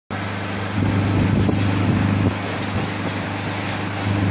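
Small speedboat's 60 hp outboard motor running at a steady cruising speed, with water rushing and slapping against the hull. The engine note holds one pitch while the overall loudness steps up and down a couple of times.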